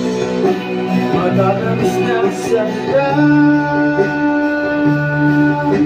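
Background music: a song with singing, ending on a long held note in the second half.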